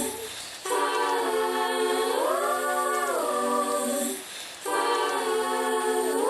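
Music: sustained a cappella choir voices holding chords with no bass or percussion, in two long phrases separated by a short gap; in the middle of the first, the chord bends up in pitch and back down.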